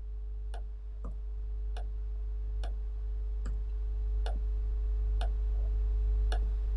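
Computer mouse clicking: single sharp clicks roughly once a second at an uneven pace, over a low steady hum.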